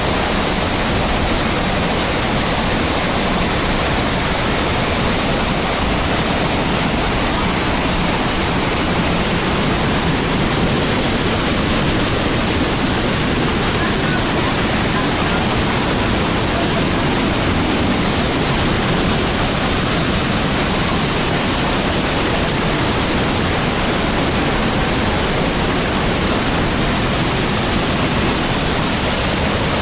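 Large waterfall pouring, a loud, steady rush of falling water with no let-up.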